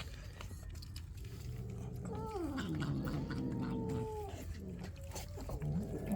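A stray cat's long, drawn-out meow that starts about two seconds in, falls in pitch and then holds for about two seconds; another cat call begins near the end.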